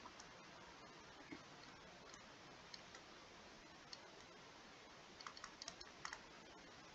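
Near silence with faint scattered clicks and taps, a quick cluster of them near the end: a stylus on a tablet as words are handwritten onto a digital whiteboard.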